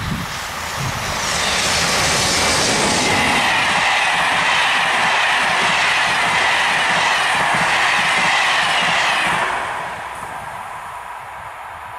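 Electric locomotive hauling a rake of Corail passenger coaches passing at speed: loud, steady rolling noise of steel wheels on rail with a high tone running through it. It swells as the locomotive arrives about a second in and falls away suddenly near the end as the last coach goes by.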